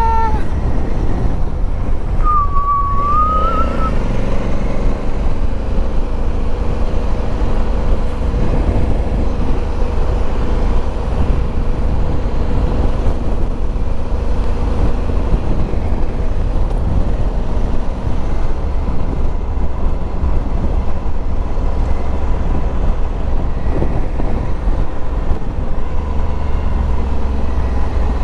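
Motorcycle riding along: a steady engine rumble mixed with wind noise on the microphone, with a brief gliding tone a couple of seconds in.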